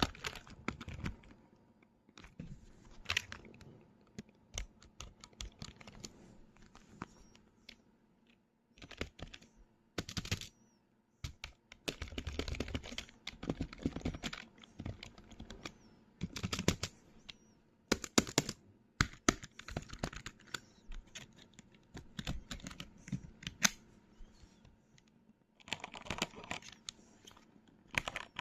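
Computer keyboard being typed on in bursts of rapid keystrokes, with short pauses between the bursts.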